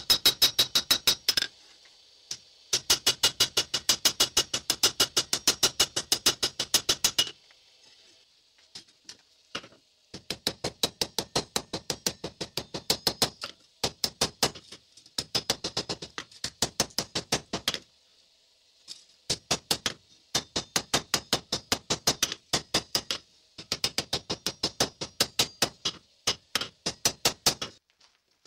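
Hand hammer striking red-hot knife steel on an anvil while forging the blade's guard. Quick runs of blows, about four a second, each with a bright metallic ring, broken by short pauses.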